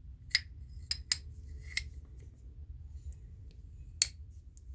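A few sharp metallic clicks, about five, as an antique Atlas pipe wrench is handled and adjusted.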